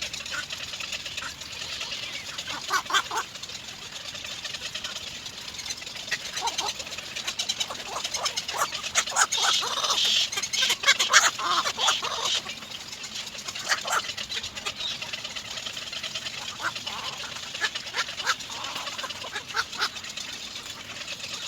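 Little egret chicks calling in the nest: repeated short calls in clusters, busiest around the middle, over a steady high hiss.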